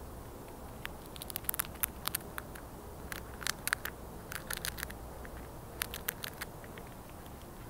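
A squirrel gnawing and cracking a peanut shell: a run of sharp, irregular crackles and snaps in clusters, stopping a little past six seconds in.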